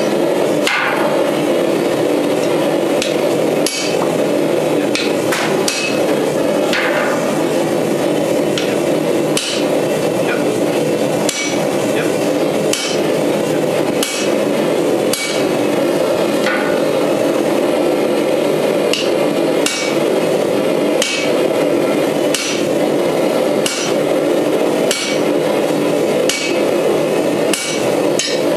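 Hand hammer striking a handled punch into a red-hot bar of steel on an anvil, punching the eye of a hammer head: sharp metal-on-metal blows at an uneven pace of about one a second. A loud, steady roar, typical of a gas forge burner, runs underneath.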